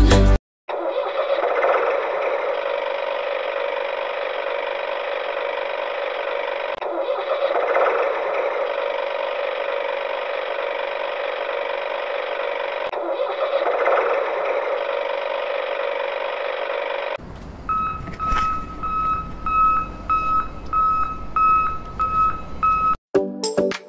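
Tractor engine running steadily, swelling slightly every few seconds. In the last several seconds it gives way to a low rumble with short beeps repeating about twice a second.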